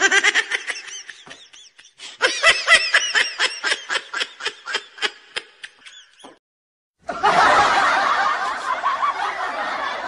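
Meme laughing sound effects played back to back: a short laugh, then a snickering laugh of about four quick pulses a second that fades away, then from about seven seconds a denser, continuous laugh.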